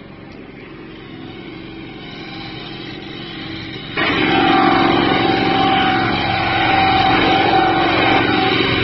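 A small engine running steadily, muffled and slowly growing at first, then suddenly much louder about four seconds in.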